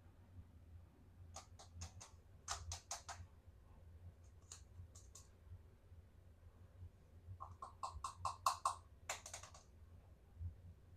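Light clicks and taps of small plastic toy pieces being handled, in short runs of several quick clicks, with the busiest run about three quarters of the way through.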